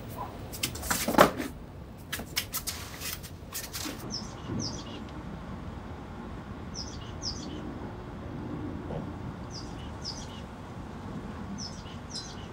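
A few sharp knocks and clatters in the first few seconds, the loudest about a second in. Then a small bird chirps in short paired calls every couple of seconds over faint background hum.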